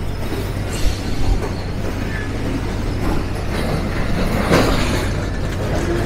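Passenger train running along the track through the hills, a steady rumble with a few knocks from the running gear.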